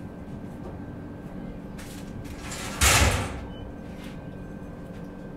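Running noise inside a train coach on the move: a steady low hum and rumble, with one brief loud whoosh about three seconds in.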